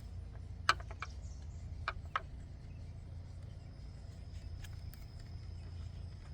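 A few short, sharp clicks and taps of small parts being handled during VVT solenoid installation, over a steady low hum.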